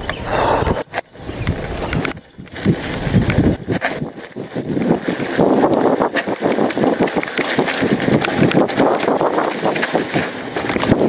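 Mountain bike rolling fast over a dirt and gravel track: the tyres crunch over loose stones and the bike rattles over the bumps. A few brief high squeaks come through.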